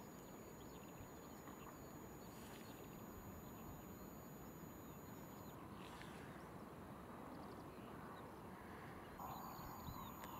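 Faint, steady background hiss with scattered faint high chirps and ticks; a faint hum joins about nine seconds in.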